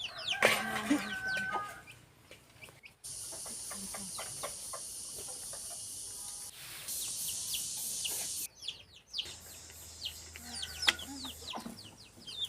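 Chickens clucking with chicks peeping in short falling chirps. For about five seconds in the middle, a steady high hiss starts and stops abruptly.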